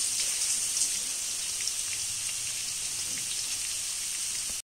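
Sliced onions frying in hot oil in a pan: a steady sizzle peppered with small crackles and pops. It cuts off suddenly near the end.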